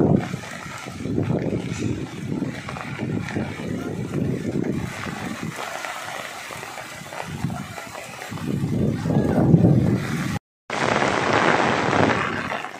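Heavy rain falling in strong wind, with gusts buffeting the microphone in rising and falling swells. After a brief gap near the end, a steadier, hissier rush of rain on a wet street.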